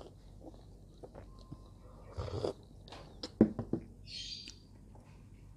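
Drinking glass set down on a wooden tabletop: a quick cluster of sharp knocks a little past the middle, after softer handling sounds.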